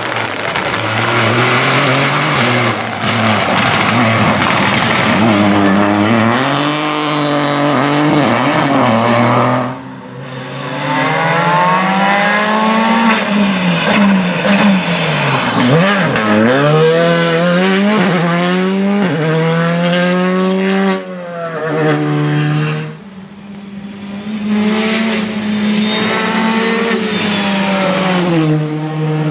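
Rally cars' turbocharged engines revving hard at speed, pitch climbing and falling again and again through gear changes as the cars pass; the sound breaks off abruptly about a third of the way through and dips again later as one car gives way to the next.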